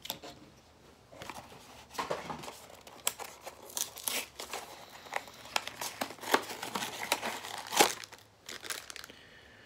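Plastic packaging of a small toy figure being torn open and crinkled by hand: a string of sharp crackles and rustles.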